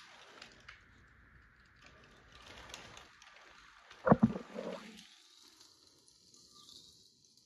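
Lego train cars rolling over plastic track through a switch, a faint rolling noise, with one sharp plastic clack about four seconds in followed by a couple of softer knocks.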